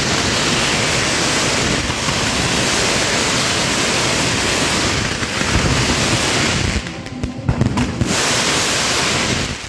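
Fireworks going off in a dense, continuous rush of crackling and hissing for about seven seconds, easing briefly, then another short burst near the end.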